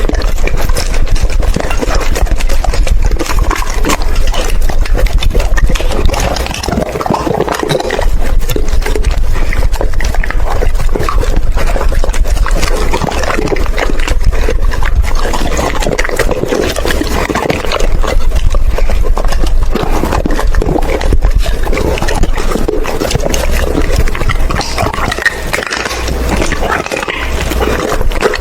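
Doberman eating raw food close to the microphone: continuous wet chewing, lapping and crunching.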